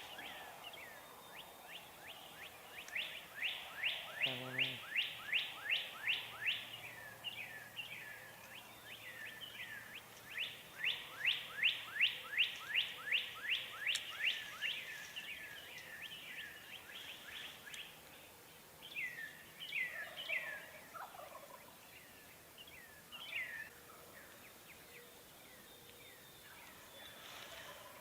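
Birds calling at dawn: a songbird repeats quick down-slurred whistled notes in long runs, and wild turkeys gobble at a distance a few times in the second half.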